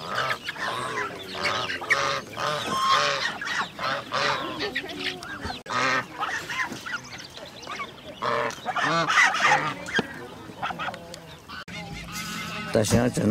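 Poultry calling, many short overlapping calls at once, easing off for a couple of seconds near the end.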